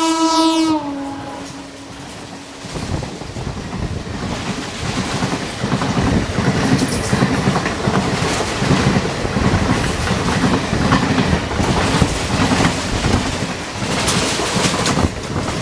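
WAP4 electric locomotive's horn sounding, dropping in pitch just under a second in as the locomotive passes, and stopping about three seconds in. The express coaches then run past at speed with a steady rumble and a rhythmic clickety-clack of wheels over the rail joints.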